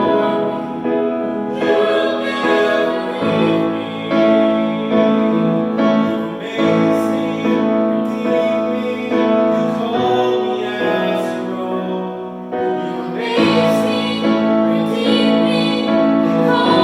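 Church music: singing with piano accompaniment, slow held notes changing every second or so.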